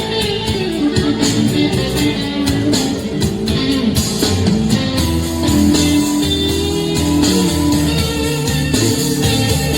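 Guitar-led rock or blues music played back through a portable speaker.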